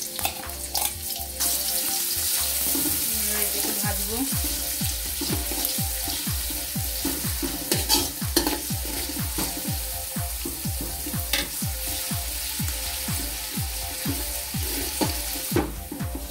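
Chopped onions sizzling and frying in hot oil in a pan while being stirred, cooking until browned. From about four seconds in a low regular thump comes in, about three times a second.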